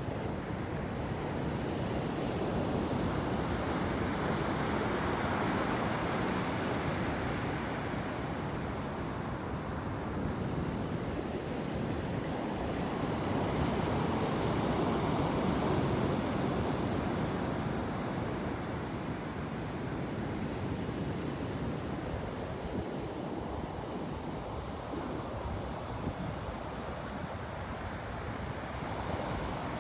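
Ocean surf: waves breaking and washing up the shore in slow surges, two big swells of sound about ten seconds apart, with another building near the end.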